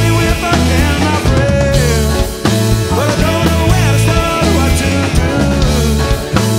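Live rock band playing a song, with guitars over a steady full low end and a melody line that slides up and down in pitch.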